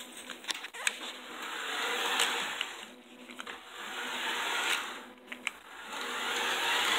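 Toy RC car's small electric motor and gears whirring as it drives across a plywood floor, swelling and fading several times as it speeds up and slows, with a couple of clicks about a second in.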